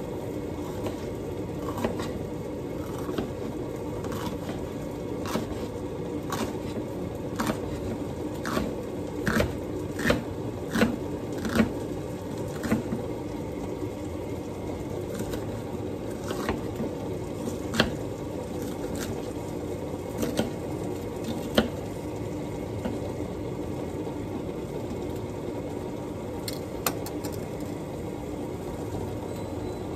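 Serrated kitchen knife cutting a red bell pepper on a wooden cutting board, the blade striking the board in a string of sharp taps that come quicker in the middle and stop a little past the two-thirds mark, with a couple more near the end. A steady hiss and hum underneath.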